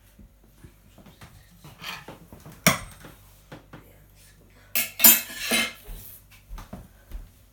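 Kitchenware clattering as things are handled and put down: a sharp clank nearly three seconds in, then a louder run of clinks and clatters about five seconds in, with lighter knocks between.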